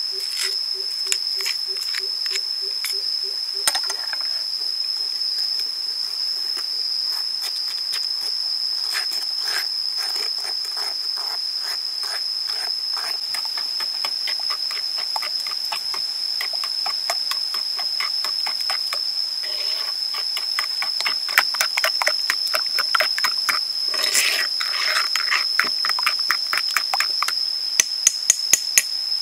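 A metal spoon stirs chili sauce in a stone mortar bowl, scraping and clinking against the stone in many quick taps that come thicker and sharper in the last third. Under it runs a steady high-pitched whine.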